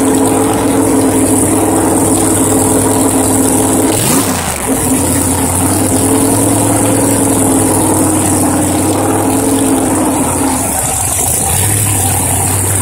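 Drag-race car engine running at the start line, held at a steady high speed. The revs dip briefly and climb back about four seconds in, and the note settles lower near the end.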